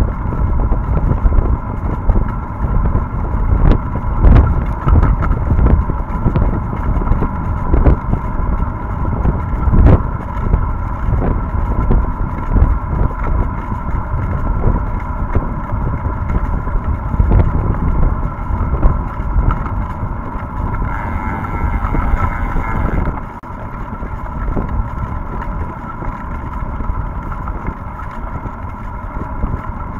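Wind buffeting the microphone of a bicycle's handlebar camera, over tyre noise on a wet, muddy road, with occasional knocks as the bike hits bumps. The rumble eases a little about seven seconds before the end.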